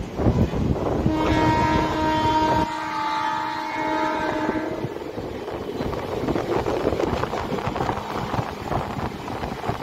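Indian Railways train horn sounding one long, steady blast from about a second in until near the five-second mark, over the running rumble and clatter of the moving train heard through an open doorway. The horn warns of the level crossing the train is approaching.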